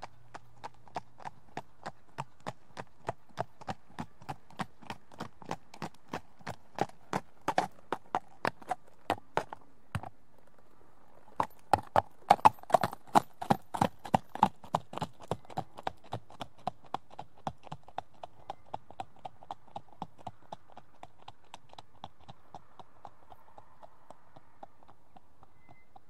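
A single horse trotting on tarmac, its hooves clip-clopping in a steady quick rhythm. The strikes grow louder, stop briefly about ten seconds in, come back at their loudest a couple of seconds later, then fade away.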